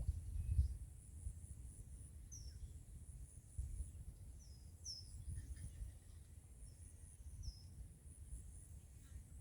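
Rural outdoor ambience: a steady high insect trill pulsing in short runs, about five brief falling bird chirps in the middle, and a low rumble underneath.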